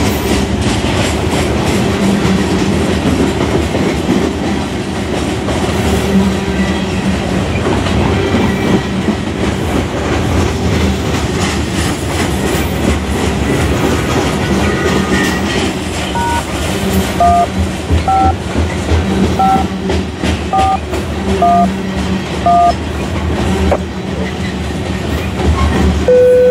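CSX freight train's hopper cars rolling past close by: a steady rumble of wheels on rail with many clicks over the joints. From about 16 s in, a string of about seven short touch-tone (DTMF) beeps comes over a scanner radio, railroad radio dialing, and a steady radio tone starts right at the end.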